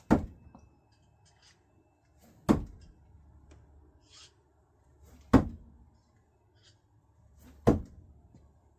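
Four thrown screwdrivers hitting a target, one sharp thunk about every two and a half seconds.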